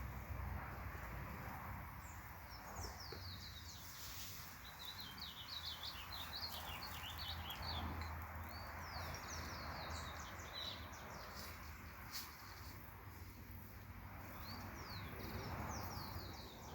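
Birds chirping: clusters of short, quick, falling high notes over a steady outdoor background noise.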